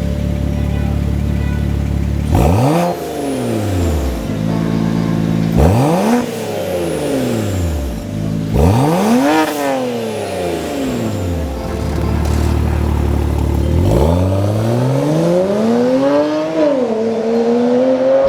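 Turbocharged inline-six of a BMW E90 335i through a Cobb cat-back exhaust, idling and revved three times in short rise-and-fall blips about three seconds apart. Near the end it revs up more slowly and is held at raised revs.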